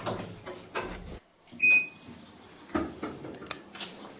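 Knocks and clatter of handling, then one short, high electronic beep about one and a half seconds in, the loudest sound, from a washing machine's control panel; more knocks follow.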